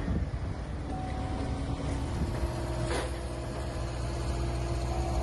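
Heavy scrap-processing machinery running with a steady low engine rumble and a few held mechanical tones, with a sharp metallic knock right at the start and another about three seconds in.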